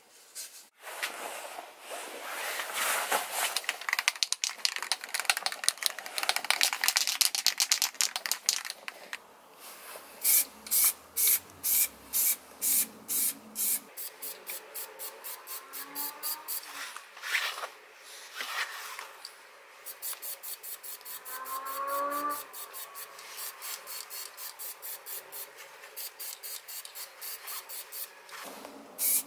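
Cloth rubbing on a wooden hatchet handle for the first several seconds, then an aerosol can of spray paint hissing in many short, repeated bursts.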